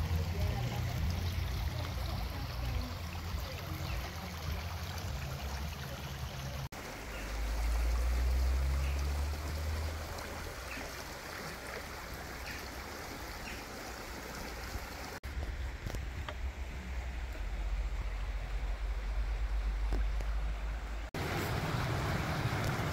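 Small woodland stream running over stones: a steady rush and trickle of water, with a low rumble on the microphone underneath. The sound changes abruptly three times where the shots are cut.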